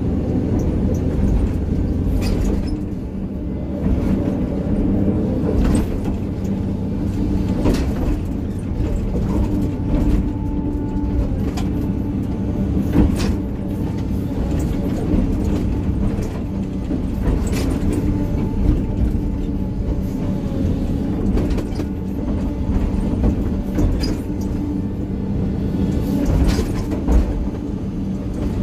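Excavator's diesel engine running steadily under work while grading stony ground, with repeated knocks and scrapes of the bucket against stones and rock.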